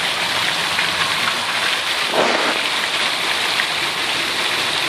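Flowing water rushing down a stone-lined channel: a steady, even hiss with no break.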